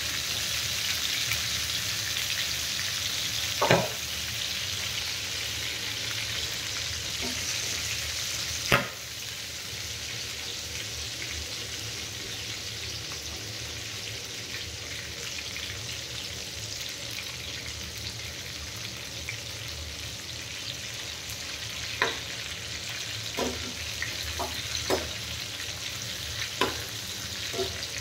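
Whole round gourds (tinda), onions and green chillies sizzling steadily in mustard oil in a steel frying pan; the sizzle eases a little about nine seconds in. Sharp metal clinks of the spatula against the pan come twice early and several times near the end.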